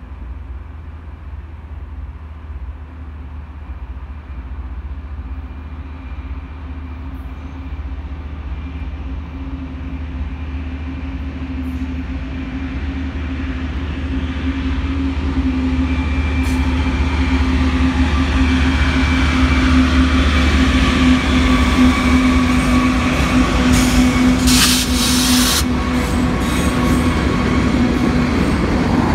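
BNSF freight train approaching and passing, its lead diesel locomotives running with a steady low drone and hum that grow steadily louder as they near. A few seconds of loud hiss come just before the locomotives go by, and the first freight cars begin rolling past at the end.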